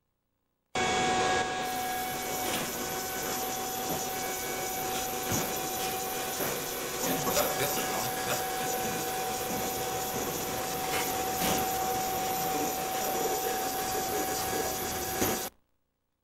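Machinery of a small automatic soymilk plant running on the factory floor: a steady mechanical noise with a constant mid-pitched hum and scattered knocks and clinks. It starts abruptly under a second in and cuts off just before the end.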